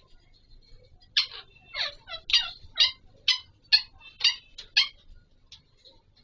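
Alexandrine (Raw/Pahari) parakeet giving a run of about nine loud, harsh squawks, roughly two a second, starting about a second in and stopping near five seconds.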